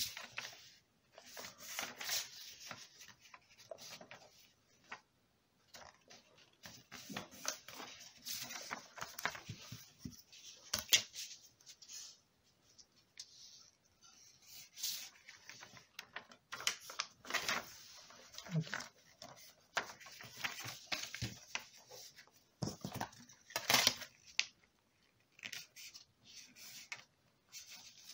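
A4 paper being folded up against the edge of a plastic ruler: irregular paper rustles and creasing noises with small clicks and taps of the ruler on the tabletop.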